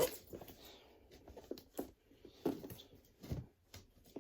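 Hands handling a cardboard shipping box and picking at its packing tape: irregular scratches, scrapes and small knocks, with a sharp click right at the start.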